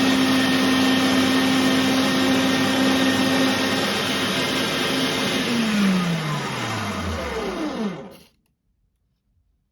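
Electric meat grinder motor running steadily, then switched off about five and a half seconds in, its pitch falling as it winds down; the sound cuts off suddenly about eight seconds in.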